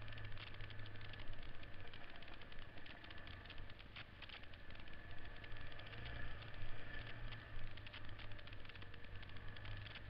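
Single-cylinder four-stroke engine of a 1970s Honda XL trail bike running steadily while riding a rough dirt trail, with frequent knocks and rattles over the bumps.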